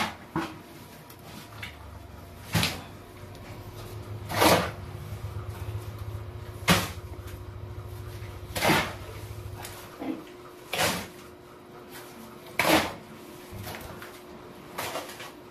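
Steel shovel scooping wet concrete mix and scraping across a concrete floor, one short gritty scrape-and-knock about every two seconds.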